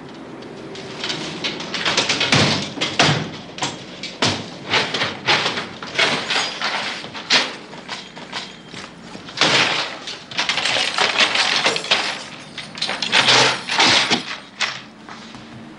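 Wooden drawers being pulled out and rummaged through, with papers rustling and being tossed about and repeated wooden knocks and clatters. The noise starts about a second in and comes in irregular clusters.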